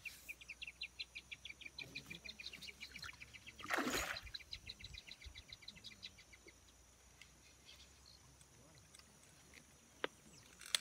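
Spinning reel clicking rapidly and evenly, about ten ticks a second, as line is worked in, stopping after about six and a half seconds. A short, louder rush of noise cuts in about four seconds in.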